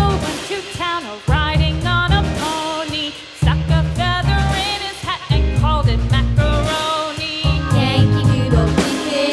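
Background music: an upbeat song with a sung melody over a steady beat and bass.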